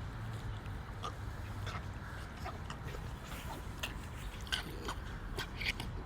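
A dog making play sounds: a run of short, scattered noises, one or two a second, over a steady low hum.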